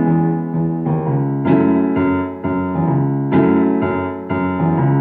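Piano playing slow, sustained chords, a new chord struck roughly every second, each left ringing.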